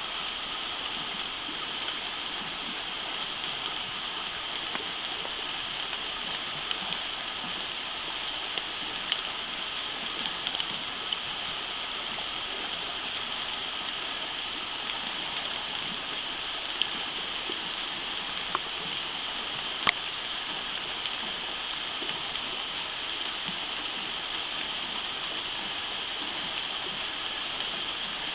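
Steady night-time chorus of insects, a dense, unchanging buzz with several high pitches held together. A few sharp clicks sound over it, the loudest about twenty seconds in.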